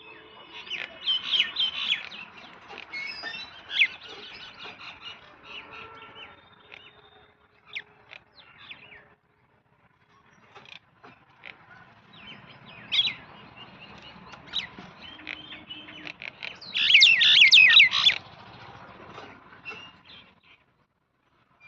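Small birds chirping: many short, high calls coming in bursts, with a dense loud flurry of chirps about three-quarters of the way through and a brief lull near the middle.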